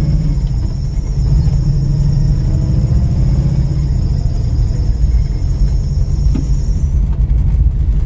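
Drive belt on a 1964 Chevy II Nova's engine squealing under acceleration, a steady high-pitched squeal over the engine and road rumble heard inside the cabin, cutting off about seven seconds in. It is the belt slipping on the alternator pulley, which the owner puts down to a belt gone loose under the load of an electric fan wired to be always on.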